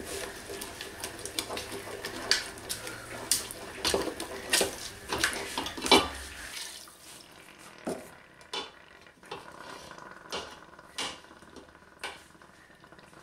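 Wooden spoon stirring a thick white sauce in a stainless steel pot, scraping and knocking irregularly against the pot. About halfway through, the knocks thin out to a few scattered taps.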